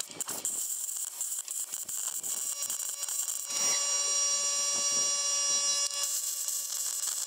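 Handheld plasma cutter cutting through rust-welded bolt heads in a Jeep's steel floor pan: a steady air hiss with a high whining tone that is loudest in the middle and fades about six seconds in.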